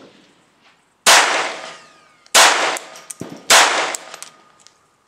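Three shots from a Lorcin L-22 semi-automatic .22 LR pistol, about a second and a quarter apart, each ringing out briefly.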